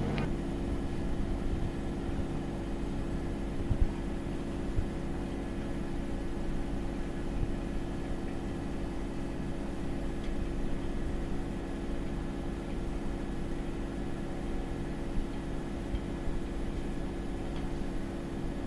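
Samsung WW80R421HFX front-loading washing machine running with a steady motor hum, with a few short knocks, the loudest about four seconds in.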